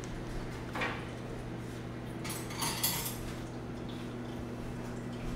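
Kitchen dishes and metal utensils clattering briefly about a second in, and again for about a second starting two and a half seconds in, over a steady low hum.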